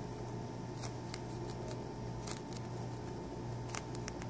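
Scattered light clicks and rustles from small objects being handled, about nine in four seconds, over a steady low electrical hum.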